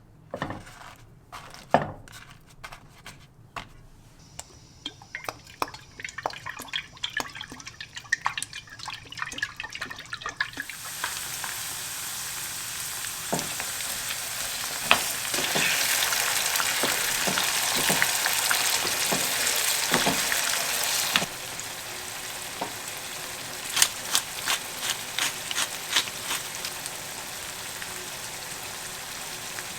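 Scattered light clicks and knocks of kitchen utensils. From about ten seconds in, food starts sizzling in a frying pan as a steady hiss, with the clicks of a utensil stirring it. About two-thirds of the way through, the sizzle drops to a quieter level and the clicks carry on.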